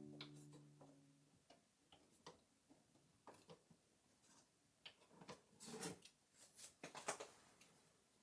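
Background music fading out in the first second, then faint, irregular light taps and clicks, with a cluster of them between about five and seven and a half seconds in.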